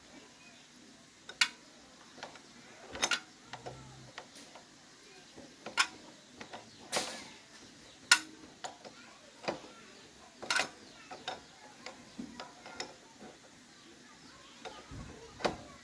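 Irregular metallic clicks and knocks of hand tools and small parts being handled while working on an old motorbike, about a dozen sharp ones with pauses between.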